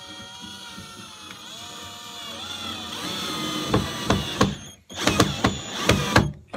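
Cordless drill driving a screw up into wood. The motor whines steadily and dips in pitch as it takes the load, then, about four seconds in, gives way to a loud stuttering ratcheting clatter as the screw goes in.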